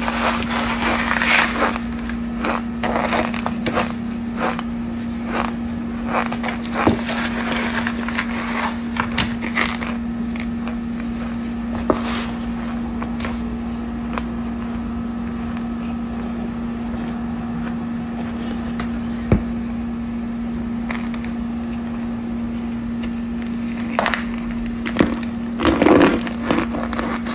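Cornstarch powder being chewed, close-miked: irregular crunching and crackling, densest at first and again near the end, over a steady low hum.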